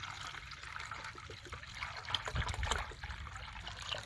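Water trickling as it is poured, most likely into the chickens' waterer, with a few small knocks.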